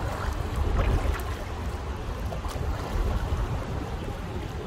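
Wind rumbling on the microphone over a steady wash of water, with a few faint light knocks, on a kayak trip on the river.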